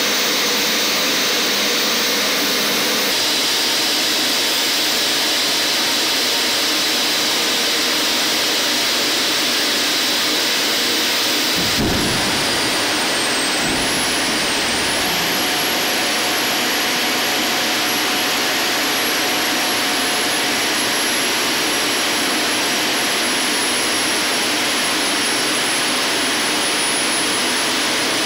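Boeing 747-400 air-driven hydraulic pumps (ADPs) running hard on ground pneumatic air, a loud, steady rushing whine, while they power a landing-gear retraction test. A short low thump comes near the middle. A high whistle sets in with it, dips briefly and then holds steady.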